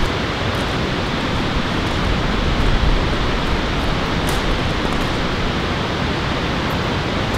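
A steady, even rushing noise that does not let up, with a few faint ticks over it.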